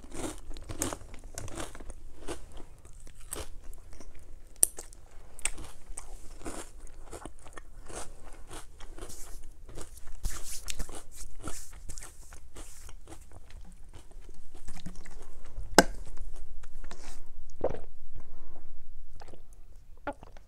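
Potato and tortilla chips crunching as they are bitten and chewed, one crisp crunch after another.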